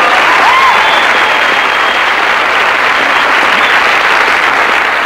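Studio audience applauding loudly and steadily, with one voice calling out briefly about half a second in.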